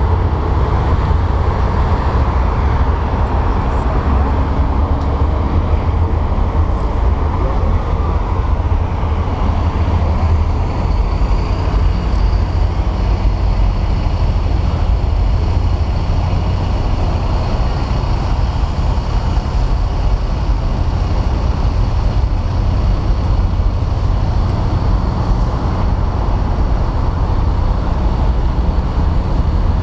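Wind buffeting the microphone: a steady low rumble over general outdoor city noise.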